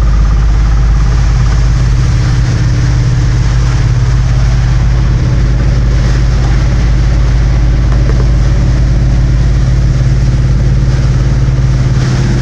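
Car driving steadily in heavy rain: a constant low engine and road drone with an even hiss of rain and tyre spray over it.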